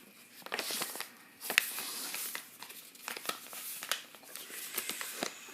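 Piece of mail being torn open by hand: paper tearing and crinkling in irregular bursts, with sharp crackles.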